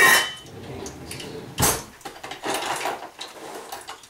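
Metal kitchen utensils clanking against a pot and rattling in an open utensil drawer while someone looks for tongs: several sharp knocks, the loudest about a second and a half in.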